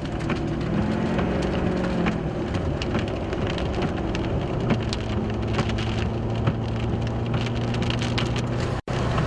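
Heavy rain pelting a vehicle, a dense crackle of many drops hitting, with a steady low hum underneath. The sound cuts out briefly near the end.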